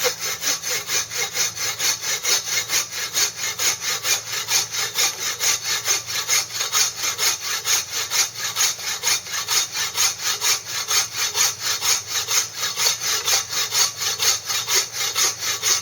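Trail Blazer take-down buck saw, fitted with a 24-inch Garden Plus bow saw blade, cutting through a piece of wood with steady, rapid back-and-forth strokes. The blade bites evenly, cutting as well as the original blade.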